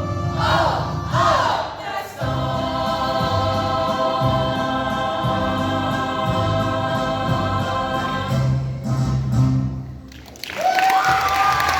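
High school choir singing the end of a song, holding a long final chord for several seconds before it cuts off. About ten and a half seconds in, the audience breaks into applause and cheering.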